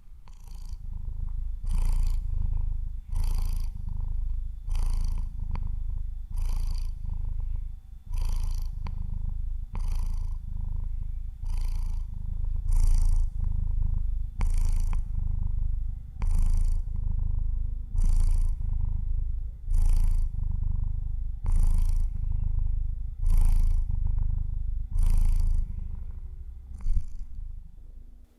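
Domestic cat purring close to the microphone: a steady low rumble that swells and dips with each breath, about one breath every second and three-quarters, each with a brief airy hiss.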